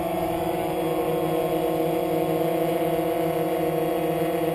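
DJI Phantom quadcopter hovering close by: its four motors and propellers give a steady hum made of several held tones.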